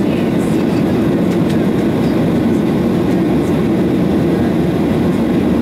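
Steady low drone of a Boeing 737-800's CFM56-7B jet engines and airflow, heard inside the passenger cabin as the aircraft climbs after takeoff.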